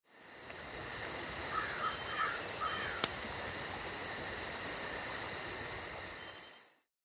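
Night-time insect chorus of crickets trilling in a fast, even pulse, with a few short chirps in the first half and one sharp crack about three seconds in. The whole chorus fades in at the start and out near the end.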